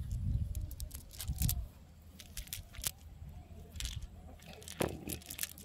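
Cast net being handled by hand: scattered clicks and clinks of its metal sinkers and rustling of the mesh as fish are picked out of it.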